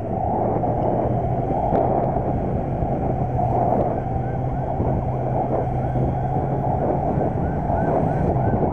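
Kawasaki Z900's 948 cc inline-four engine running at a steady cruise, with wind rushing over the microphone. From about four seconds in, an ambulance siren wails faintly behind it, rising and falling a few times a second.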